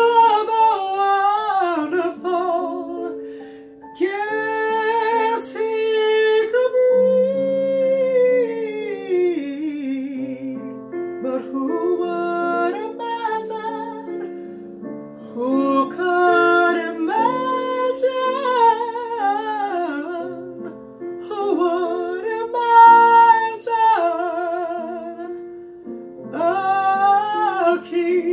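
A man singing solo in several phrases, with held notes in vibrato and gliding runs, over an instrumental accompaniment of sustained chords.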